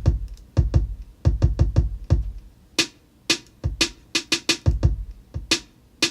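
Electronic drum beat played from a Native Instruments Maschine MK3: deep, booming kick drums with long low tails, alternating with sharp snare or clap and hi-hat hits in an uneven, syncopated pattern.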